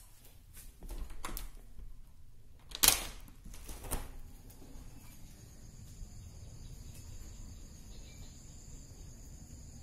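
A door's handle and latch clicking as the door is opened, with a sharp knock about three seconds in. From about four and a half seconds on, the steady high chirring of insects.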